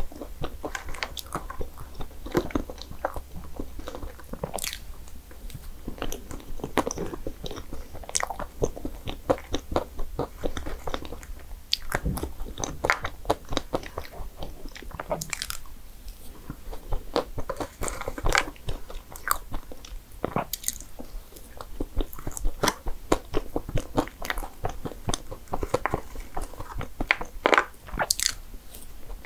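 Close-miked eating: bites and chewing of desserts with crisp crunches, a dense, irregular run of small clicks and crackles.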